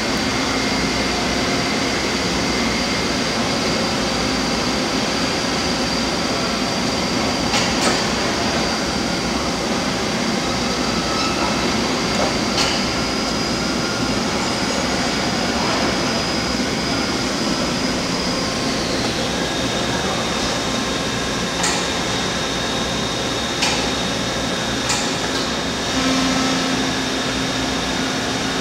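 Toshiba BTD-11R16 CNC horizontal boring mill running under power: a steady mechanical hum with a high whine that drops in pitch about two-thirds of the way through, several sharp clicks, and a lower hum joining near the end.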